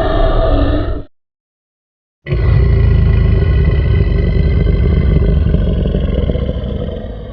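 Monster sound effects: the end of a creature roar cuts off about a second in, and after a second of silence a long, deep, rumbling creature growl starts suddenly and slowly fades away.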